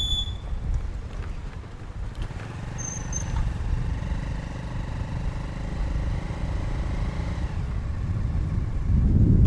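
Road traffic heard from a moving motorcycle: a steady low rumble of engines and tyres. A short high beep sounds at the start, and a vehicle's pitched hum runs through the middle. Wind noise on the microphone swells near the end.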